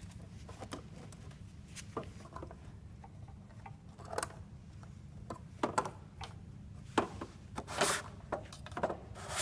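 Scattered clicks and light knocks of the LED moving beam bar's case being handled and lifted off after its screws are out. The clicks and knocks come more often and louder in the last few seconds.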